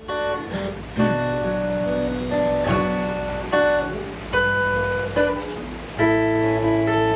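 Acoustic guitar played fingerstyle: slow picked chords and melody notes left to ring, with a new chord or note group struck about once a second.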